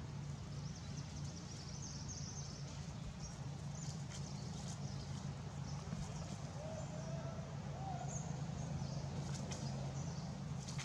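Outdoor ambience: a steady low hum under a noisy background, with faint high chirps and squeaks and a few short calls past the middle.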